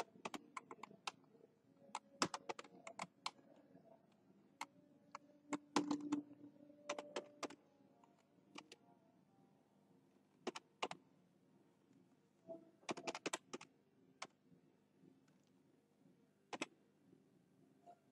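Computer keyboard typing: short runs of quick keystrokes with pauses of a second or more between them.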